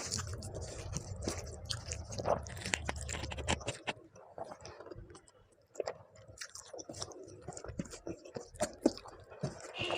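A person chewing and biting food close to the microphone, with many small crunching clicks and wet mouth sounds. A low rumble underlies the first few seconds and stops about four seconds in.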